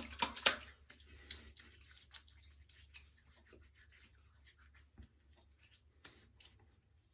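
Witch hazel being splashed and patted onto freshly shaved skin by hand: a few sharp wet smacks in the first second, then faint patting and rubbing.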